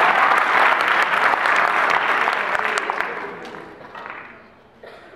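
Audience applauding, a dense clatter of many hands clapping that dies away over the last two seconds.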